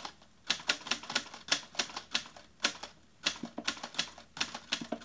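Typewriter key-strike sound effect: an irregular run of crisp clicks, about four a second, that accompanies on-screen text typing out letter by letter.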